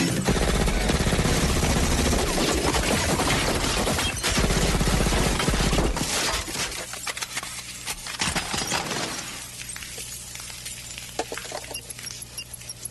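Film gunfire sound effects: a long volley of rapid shots mixed with glass shattering and breaking. About six seconds in it dies away to scattered clinks and falling debris over a low steady hum.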